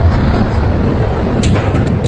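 Double-shaft metal shredder grinding scrap metal: a loud, steady, heavy rumble, with a few sharp metallic cracks about one and a half seconds in.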